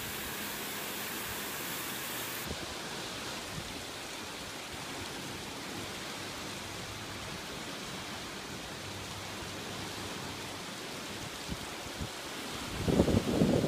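Steady rushing of a creek in flood, brown floodwater swollen by cyclone rain churning under a concrete bridge, with rain falling. Near the end, gusts of wind buffet the microphone.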